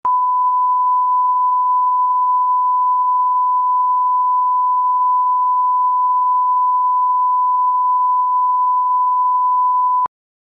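1 kHz line-up test tone accompanying SMPTE colour bars, the reference signal for setting audio levels: one steady pure tone that cuts off abruptly about ten seconds in.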